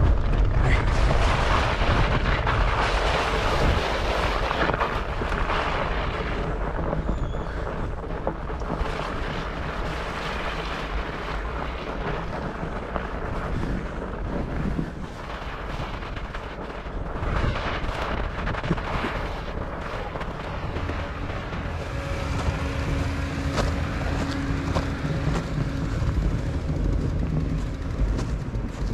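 Wind buffeting the microphone over the steady rolling noise of a fat bike riding through snow on Maxxis Minion fat-bike tires. A faint steady hum comes in about three-quarters of the way through.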